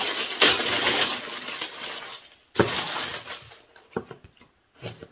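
Tissue wrapping paper crinkling and rustling as it is torn open and unfolded: one long stretch, a shorter burst about two and a half seconds in, then a few light rustles.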